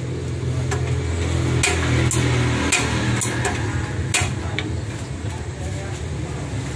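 Gas stove igniter clicking about eight times in the first five seconds as the burner is lit, over a steady low rumble of road traffic.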